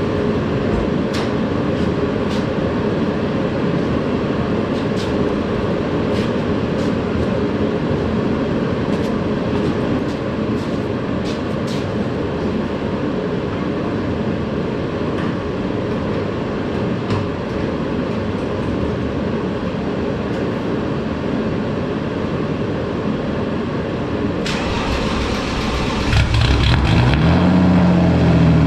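BMW Z3 M Coupe engine, started for the first time after sitting a long while and with no turbo fitted, turning over on the starter for a long stretch, then catching about 26 seconds in and running louder with a deep, steady note.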